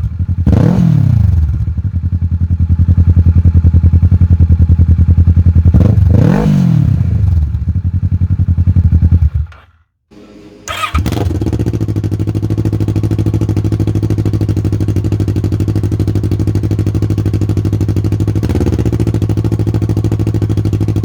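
Kawasaki Versys 650 parallel-twin engine with a MIVV Storm aftermarket exhaust, idling with two quick revs. About halfway through it shuts off for about a second. It then starts again and idles steadily, with a small blip near the end.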